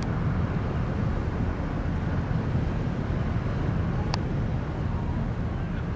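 A steady low rumble of outdoor ambience, with a single sharp click about four seconds in.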